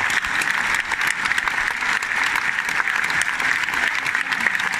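Large bullring crowd applauding steadily: dense, even clapping.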